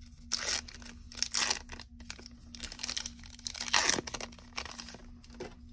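Foil-lined wrapper of a baseball card pack being torn open and crinkled off the cards, in irregular bursts, the loudest just under four seconds in.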